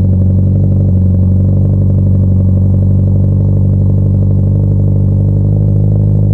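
Spec-D cat-back exhaust with its silencers removed, on a first-generation Scion FR-S / Subaru BRZ / Toyota 86 with a 2.0-litre flat-four boxer engine. The engine runs steadily at constant revs, giving one even, low-pitched exhaust note.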